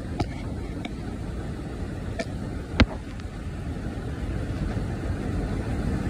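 2005 Dodge Ram's engine idling with a steady low rumble, plus a few light clicks, the loudest a little before three seconds in. The truck is running after its steering rack replacement.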